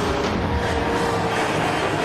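Background music over a vehicle engine held flat out.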